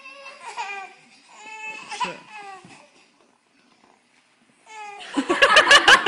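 Babies squealing and babbling in high excited voices, then, after a short pause, a loud burst of laughter near the end.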